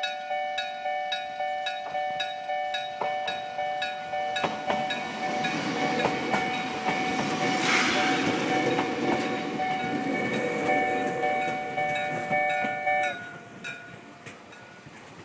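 Railway level-crossing electric bell (denshō) ringing steadily at about three strikes a second while a train rumbles past over the crossing. The bell stops abruptly near the end.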